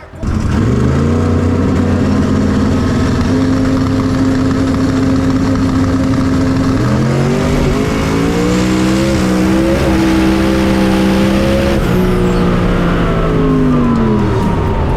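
Drag-racing car's engine starting loud and held at high, steady revs, the pitch stepping up about halfway through and falling away near the end.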